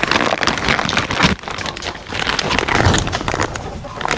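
Close, dense rustling and crackling, like nesting material being shifted by hand while eggs are collected.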